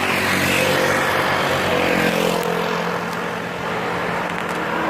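A motor vehicle's engine running at a steady speed while travelling, with road and wind noise.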